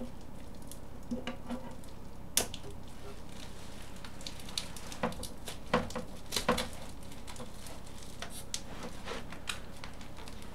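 Irregular clicks, scrapes and crackles of hands and a knife working at sellotape stuck onto a 3D printer's frame, with a few sharper clicks about two seconds in and again around six seconds.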